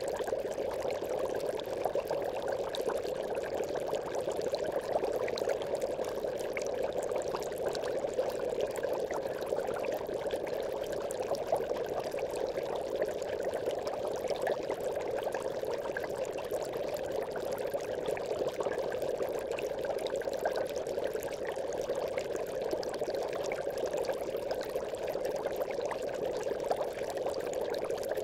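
Aquarium bubbles: water bubbling continuously and evenly, a steady mid-pitched rush flecked with faint small pops.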